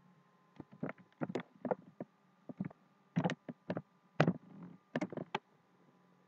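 Computer keyboard typing and mouse clicks: an irregular run of about fifteen sharp clicks over some five seconds, over a faint steady hum.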